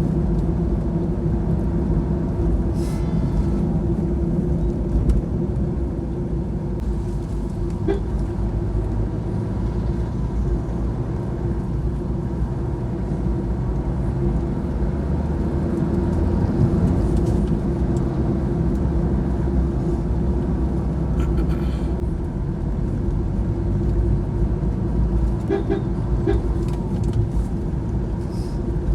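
Steady rumble of a vehicle driving along a road: engine drone and tyre noise, with a few short higher-pitched sounds in between.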